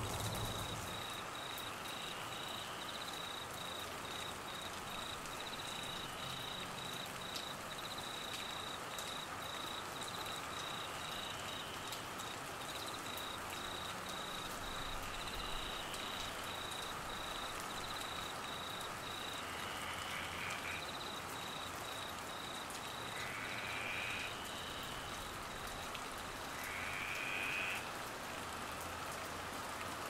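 Steady monsoon rain falling on foliage and grass. Over it, a high chirp pulses evenly, drops out about two-thirds of the way through and returns briefly. A short rising call repeats every few seconds and grows louder near the end.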